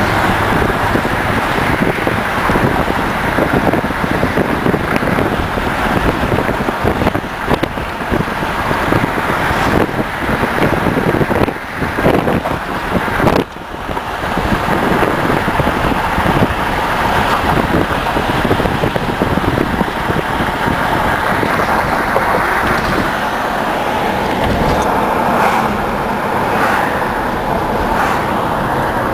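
A car driving at road speed: a steady rush of tyre and wind noise with no distinct engine note, dipping briefly twice about halfway through.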